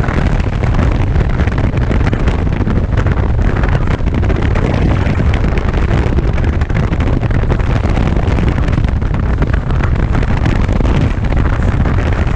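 Steady wind rumble buffeting the microphone, mixed with water rushing along the hulls of a Tornado racing catamaran under sail.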